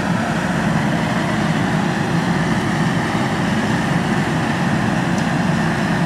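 Skid steer's engine running steadily at a constant speed, with no change in pitch or loudness.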